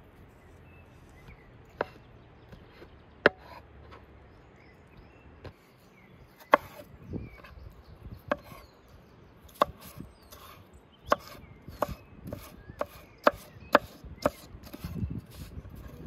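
A blade chopping on wood: about a dozen sharp knocks, a second or more apart at first, then coming faster, roughly every half second, in the second half.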